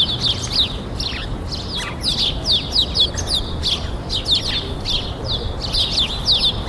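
Many small birds chirping continuously in quick, falling notes, over a steady low rumble of city traffic.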